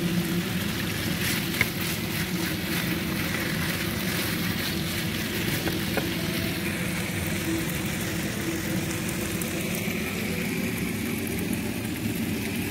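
Chicken strips and onion frying steadily in a pan, stirred with wooden spatulas, with a low steady hum underneath. A couple of brief clicks, one about one and a half seconds in and another about six seconds in, come from the spatulas against the pan.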